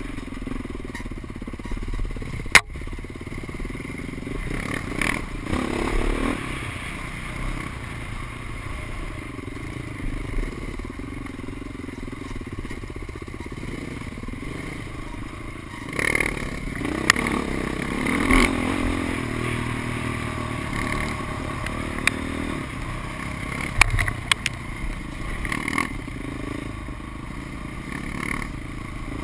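Dirt bike engine running on a rough trail, its revs rising and falling with the throttle, with sharp knocks and clatter as the bike rides over rocks; one loud sharp click about two and a half seconds in.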